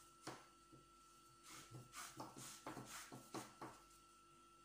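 Faint rustling and rubbing of braided rope being drawn through a monkey's fist knot and handled, a quick string of soft swishes in the middle, over a thin steady whine.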